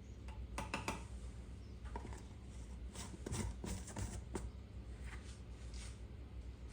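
Light clicks, taps and rustles of small objects being handled, in irregular clusters.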